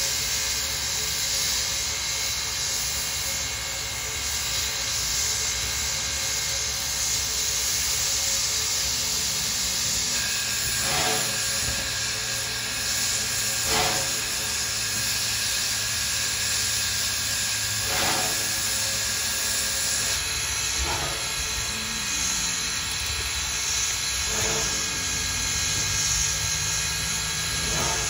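Steam hissing steadily from a standing steam locomotive, Wilmington & Western No. 58 (Baldwin, 1907), with a low hum beneath and a few short sharp knocks spaced several seconds apart.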